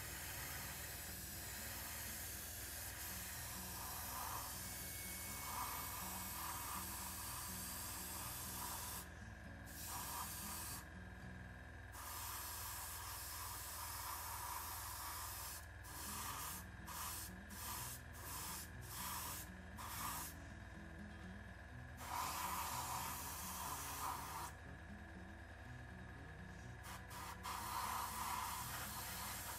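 Airbrush spraying paint, a hiss of air and paint turned on and off at the trigger. There is one long spray for roughly the first nine seconds, then a run of shorter bursts, with several quick short ones past the middle.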